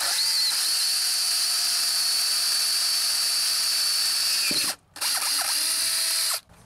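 Power drill with a regular twist bit boring a pilot hole into square steel tubing, running steadily with a high whine. It stops briefly after about four and a half seconds, then runs again for about another second and a half.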